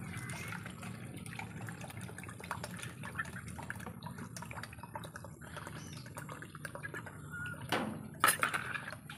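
A spoon scooping coconut-milk fish curry sauce and dribbling it over a plate of rice, with many small wet clicks and a few sharper knocks of the spoon near the end.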